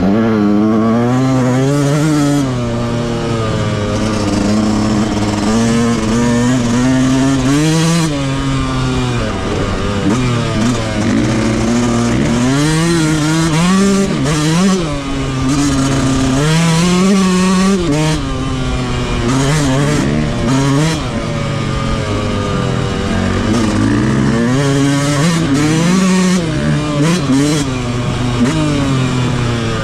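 Yamaha YZ125 two-stroke dirt bike engine with its stock exhaust, ridden hard off-road. The engine pitch keeps climbing and dropping every second or two as the throttle is opened and shut and the gears change.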